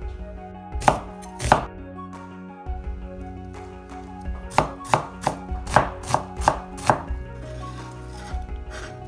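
Chinese cleaver chopping onion on a wooden cutting board: two sharp chops about a second in, then a quick run of about a dozen chops between four and seven seconds in.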